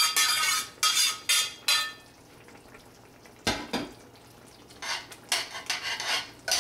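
A metal spoon clinking and scraping against stainless steel pans, the first strokes ringing. After a short pause there is one knock, then the spoon stirs a thick tomato stew in the pot with repeated scraping strokes.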